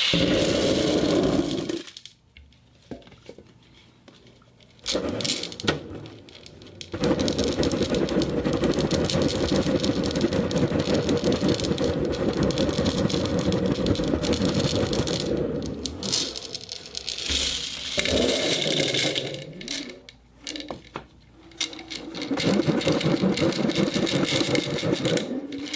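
Ceramic balls rattling and clattering against each other in dense, continuous stretches of many rapid small clicks, stopping and starting again several times with short quieter gaps, the longest run about nine seconds.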